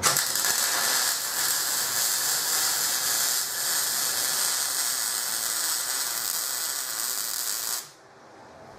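MIG welder arc on steel, a steady crackling sizzle for about eight seconds that cuts off suddenly near the end as the trigger is released.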